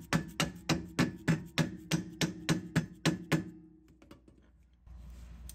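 A hammer tapping the strut's lower mounting bolt, about fifteen quick strikes at four to five a second, each with a short metallic ring. It stops about three and a half seconds in. The taps are meant to drive the bolt through the strut and knuckle holes.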